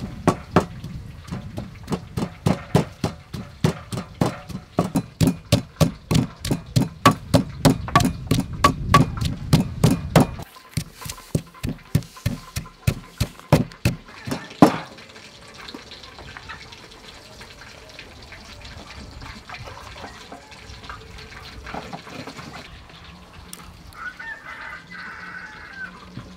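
Wooden pestle pounding in a wooden mortar, grinding chili, garlic and sugar into a paste. Steady strikes come about three a second and stop about fifteen seconds in.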